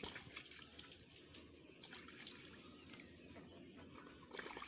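Faint water sloshing and dripping in a plastic basin as hands rinse pieces of roasted goat leg and head, with small splashes throughout.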